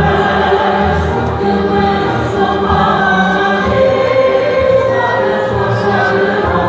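A man and a woman singing together over backing music, long held notes over a steady low accompaniment.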